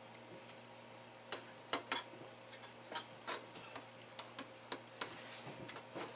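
Irregular small clicks and taps of a graphics card's plastic fan shroud and cooler being handled and pressed back together, the loudest about two seconds in, over a faint steady hum.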